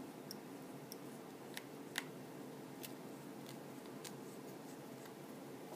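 Faint, irregular small clicks of a micro Phillips screwdriver working tiny screws out of an iPhone 4's metal frame, over a steady low hum.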